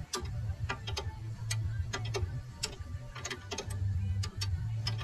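Irregular metallic clicks and ticks of a spanner and Allen key working on the throttle-stop bolt at a go-kart's pedal, with a low hum that comes and goes underneath.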